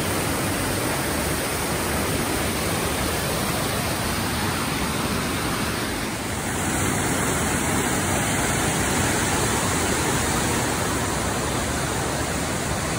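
A waterfall's steady, loud rush of falling water. The rush brightens slightly about halfway through as the phone swings away.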